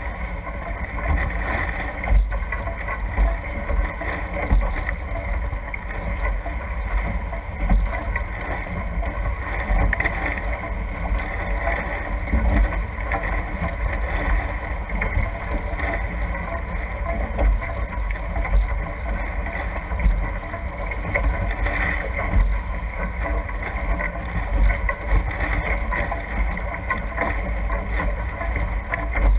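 Wind buffeting the microphone over the rush and spray of water off the hulls of a Nacra F18 Infusion catamaran sailing fast, with irregular gusty thumps.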